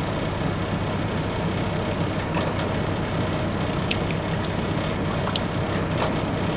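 Steady drone of an idling truck engine, with a few light clicks of a utensil stirring a béchamel sauce in a pot.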